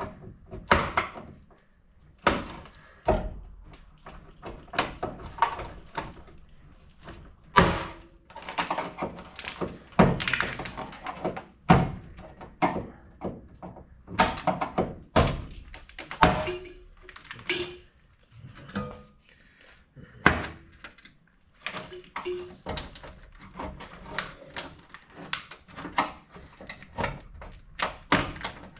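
Irregular clicks, knocks and clunks of hands and tools working on a car's front wiring harness, pulling it free of its plastic clips and hangers.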